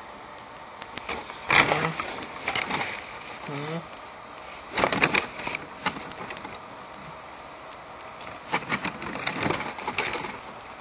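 A plastic lock pick case and a bag of tension wrenches being handled: several bursts of rustling and clicking, with a short murmur of voice a few seconds in.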